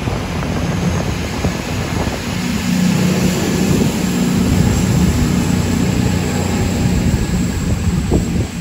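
CrossCountry Class 220 Voyager diesel multiple unit pulling out of the platform, its underfloor diesel engines droning steadily with a low hum.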